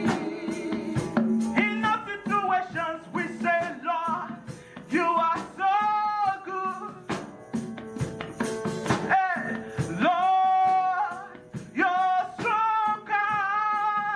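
Live gospel praise music: a singer leading a worship song over a band, with sung phrases that bend and hold, steady instrument notes underneath, and frequent percussion strikes.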